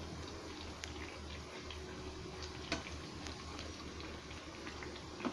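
Paruppu vadai (chana dal fritters) deep-frying in hot oil: a faint, steady sizzle scattered with small crackles. A sharper click comes a little past the middle and another at the very end.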